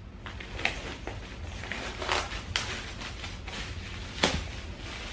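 Clear plastic wrap crinkling and crackling as it is peeled off a thin board, in scattered rustles with a few sharper crackles, the loudest about four seconds in.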